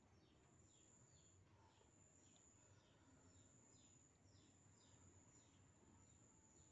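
Near silence: faint outdoor background with a steady high whine and faint, short, falling bird chirps about twice a second.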